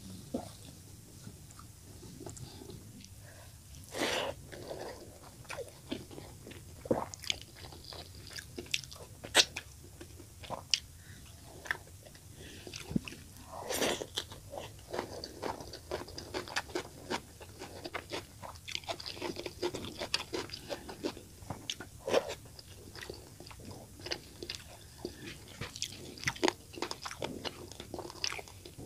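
Close-up eating sounds: a person chewing and biting mouthfuls of rice and fish curry eaten by hand, with many sharp, irregular wet mouth clicks and crunches.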